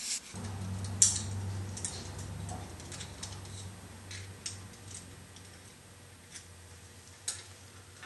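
Scattered light metallic clicks and ticks, the loudest about a second in, as small tapered valve keepers are picked out from under a compressed valve spring retainer on a cylinder head. A low hum sits underneath and fades away.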